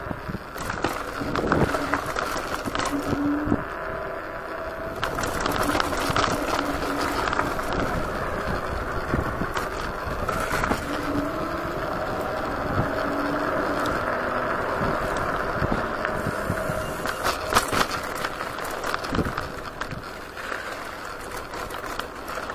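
Kaabo Wolf Warrior 11 dual-motor electric scooter ridden over city streets: steady tyre and road noise with scattered knocks and rattles, and short humming tones that come and go.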